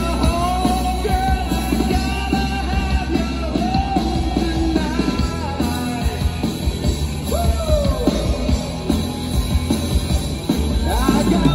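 Live rock band playing: a man singing over electric guitar, bass guitar and a drum kit.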